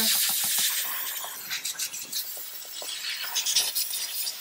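Chief steam cleaner hissing as steam jets from its brush-tipped nozzle, with the bristles scrubbing and scraping against engine-bay parts. The hiss is strongest for about the first second, then drops away under the uneven scrubbing strokes.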